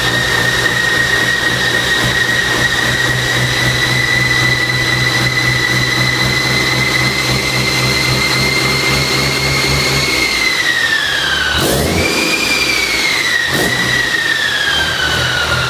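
Cummins QSM11 inline-six diesel engine running steadily at a fast speed, with a high whine over the engine note. About ten seconds in the speed drops, picks up again briefly, then settles lower, the whine falling and rising with it.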